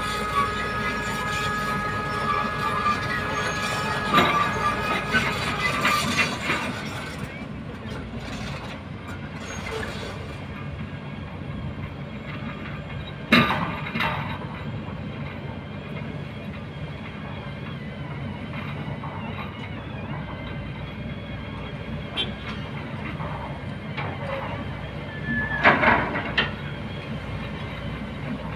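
Kobelco hydraulic excavator running and working in river rock: a steady engine and hydraulic din, with a high steady squeal for the first five seconds or so. Loud clanks of the steel bucket against stones come about four seconds in, near the middle, and in a cluster near the end.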